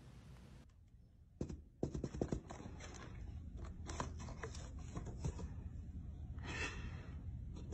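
Faint scratching and scraping on cardboard as a cat inside a box paws and pushes at a flap cut in its side: irregular small clicks and rustles beginning about a second and a half in.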